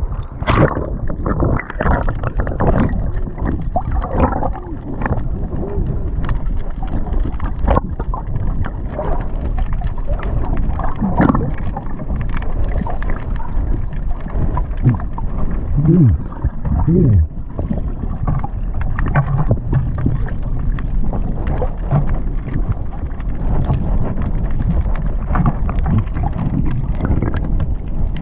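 Shallow seawater sloshing and splashing, with wind buffeting the microphone; a few brief muffled voice-like sounds about two-thirds of the way through.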